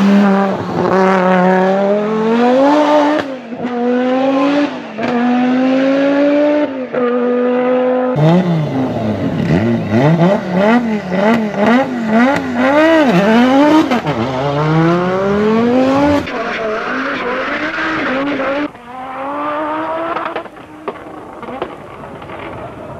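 Audi Sport Quattro S1 E2's turbocharged inline five-cylinder rally engine at high revs, in a series of cut clips. First it accelerates hard through the gears, the note climbing and dropping at each upshift; then it is revved in quick throttle blips, rising and falling several times a second; near the end a quieter, rougher recording of the car under power.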